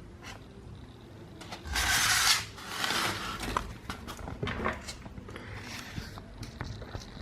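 A dimple lock cylinder being taken apart by hand: small metal clicks and scraping of parts and tools, with two louder scraping rustles about two and three seconds in.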